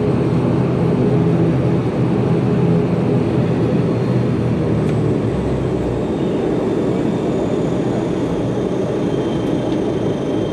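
ATR 42 turboprop engine and propeller droning steadily, heard from inside the cabin as the aircraft taxis after landing. The drone eases slightly toward the end.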